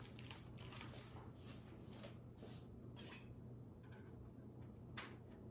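Near silence: quiet room tone with faint scattered light clicks and one sharper click about five seconds in.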